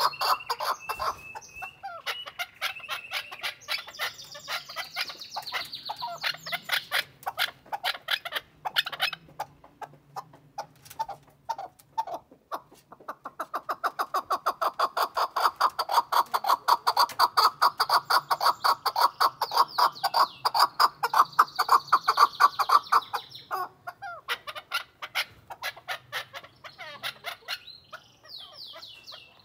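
Chukar partridge calling: long runs of fast, repeated clucks, sparser about ten seconds in, loudest in a long run in the middle, and thinning out near the end.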